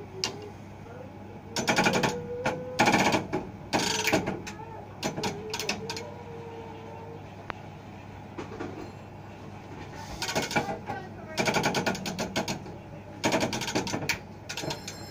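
Mechanical speaking clock's machinery running with a steady low hum, broken by short bursts of rattling mechanical clatter as its mechanism is worked by hand.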